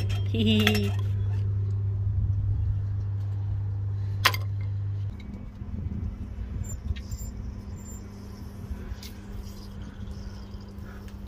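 A rod clinking against the stainless-steel flap of a rat trap fitted in a drain pipe, over a steady low hum, with one sharp clink about four seconds in. After the hum stops, faint clicks of a hand working an outdoor garden tap.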